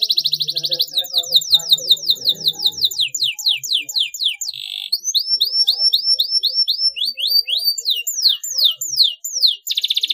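Domestic canary singing: a fast trill, then runs of quick falling whistled notes, then a run of rising hooked notes, then falling notes again, ending in another fast trill.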